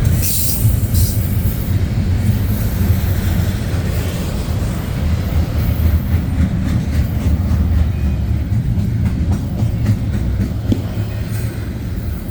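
Freight cars of a CN intermodal train rolling past at moderate speed: a steady, loud low rumble with wheel clatter, and a short high hiss or squeal in the first second.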